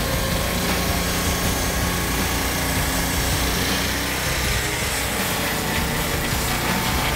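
Petrol engine of a Turbo Sawmill M12 portable circular-blade sawmill running steadily under load as its blade cuts along a log.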